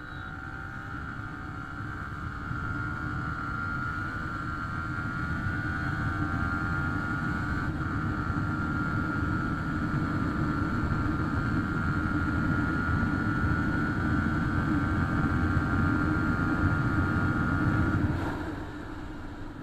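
Yamaha R15 V3's 155 cc single-cylinder engine running hard at speed, with heavy wind rush on the microphone. It builds over the first few seconds, holds steady, then drops off sharply near the end.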